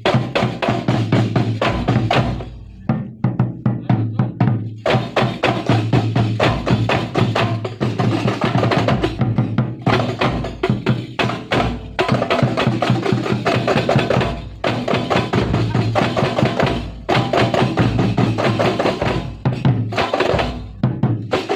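Kuntulan percussion ensemble of frame drums and drums playing a fast, dense rhythm in short phrases, breaking off briefly every few seconds.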